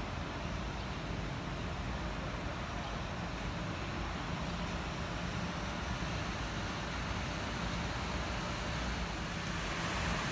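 Steady ambient noise: an even hiss over a low rumble, with no distinct events.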